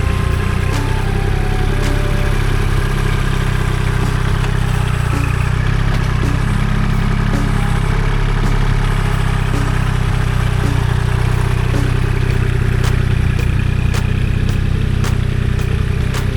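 Kubota L2501 compact tractor's three-cylinder diesel engine running steadily while working the ground, with occasional sharp clanks.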